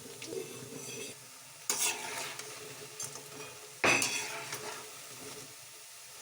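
Food sizzling in a frying pan while it is stirred with a utensil, with two louder scraping clatters against the pan, just under two seconds in and again about four seconds in.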